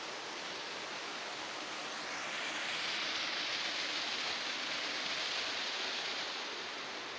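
Water pouring down an artificial rock waterfall cascade: a steady rush that swells louder and brighter about two and a half seconds in and eases off near the end.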